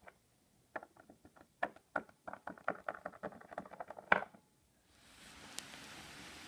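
Small plastic toy animal figures hopped along a wooden tabletop by hand: a quick run of light taps and clicks, ending in a sharper knock about four seconds in. Then a steady soft rustling hiss from the camera being handled as the view swings across the toys.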